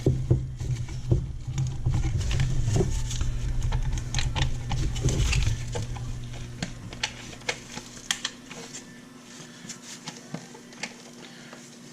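Clicks, taps and light rattles of a plastic grinder dust shroud being handled and shifted by hand, over a low hum that fades out a little past halfway.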